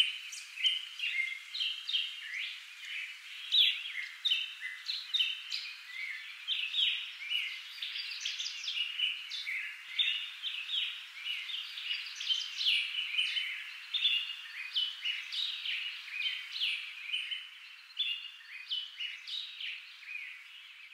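Songbirds chirping and singing, several overlapping at once, with no low sounds beneath them.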